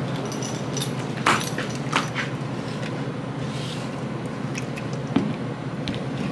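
Steady shop background noise with three sharp knocks, about one, two and five seconds in.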